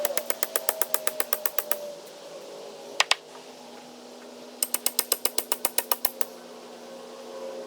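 Rapid mechanical clicking, about nine clicks a second, in two runs of a second or two with a quick double click between them, over a faint steady hum.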